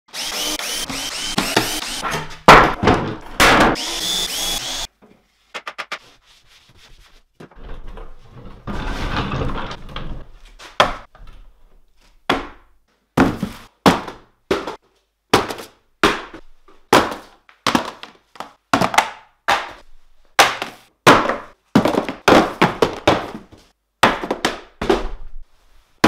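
A handheld power tool running against a wooden tabletop, then a long run of separate thunks, about one or two a second, as cardboard boxes are set down on the table one after another.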